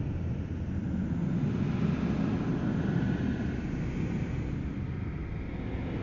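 Steady low rumbling drone of a Halloween haunted-house ambience, with faint tones slowly wavering above it and no distinct events.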